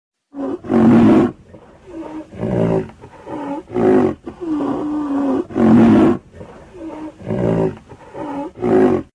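Rhinoceros calling: a quick series of about ten loud calls, several with a pitch that dips and rises, and one held longer about five seconds in.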